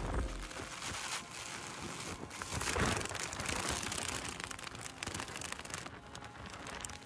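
Rain pattering on a nylon umbrella canopy held close, with the fabric rustling and crinkling as gusty wind buffets it. The noise swells louder about three seconds in.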